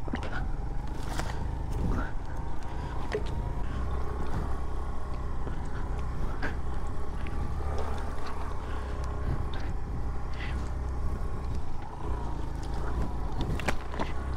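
Suzuki Van Van 125's single-cylinder engine running at low speed as the motorcycle rides along a rough dirt trail, with scattered knocks from the bike over the uneven ground.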